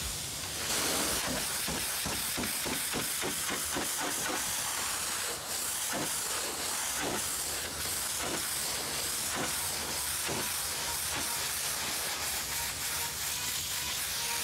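Hot-water pressure-washer lance blasting dirt off an excavator's steel panels: a steady hiss of the jet with many short spatters as the spray hits the surface.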